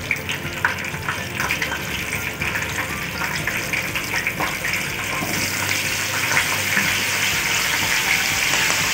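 Bitter gourd pieces sizzling as they go into hot oil with crackling whole spice seeds, with scattered small pops in the first few seconds. The sizzle grows louder about five seconds in as more pieces are added.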